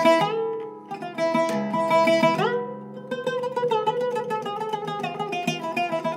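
Zeryab oud with a Canadian cedar top played with a plectrum: plucked melodic notes with two quick upward slides in pitch, then a fast run of rapidly repeated tremolo strokes from about halfway through.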